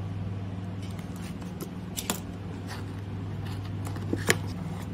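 A cardboard camera box being handled while its seal stickers are slit open with a pen tip: a few sharp clicks and scratches, the sharpest near the end, over a steady low hum.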